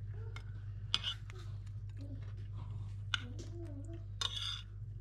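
A metal knife and spoon clinking and scraping on a ceramic plate while cutting into fried chicken and rice. There are a few sharp clinks and a short scrape a little after four seconds.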